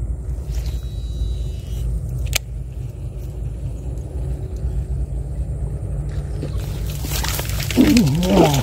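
Steady low rumble with a couple of sharp clicks. Near the end a rustling, splashy noise rises and a short wavering vocal sound comes in.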